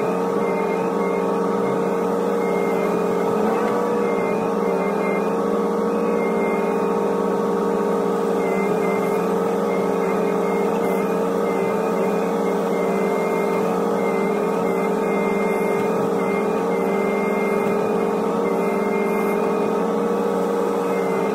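Hitachi ZX125W wheeled excavator's diesel engine and hydraulics running steadily, heard from inside the cab, with a steady whine that wavers slightly in pitch as the boom and tiltrotator bucket are worked.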